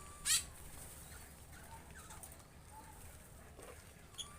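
Caged songbirds calling: one short, scratchy, high call about a third of a second in, then a few faint soft chirps.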